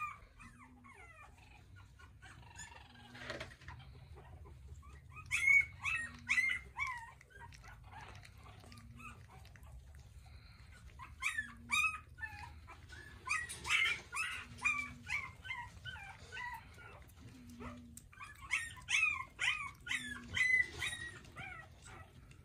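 Four-week-old French bulldog puppies whimpering and squealing in short high-pitched cries, coming in several clusters a few seconds apart.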